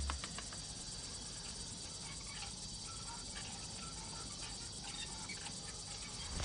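Crickets chirping faintly in sparse, scattered chirps over a steady hiss. A low rumble dies away in the first instant.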